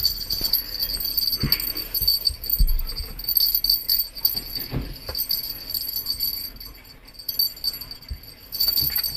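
A small bell jingling unevenly as kittens bat at a feather toy, with a few soft thumps from their pouncing, quieter for a moment past the middle.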